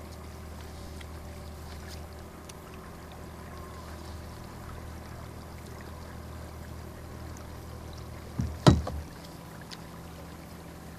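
Steady low hum of a small boat motor under way while trolling, with a sharp double knock about eight and a half seconds in.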